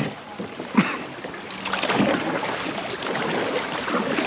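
Water splashing and rushing around a kayak being paddled, with a few sharp splashes from paddle strokes; the water noise grows louder about two seconds in.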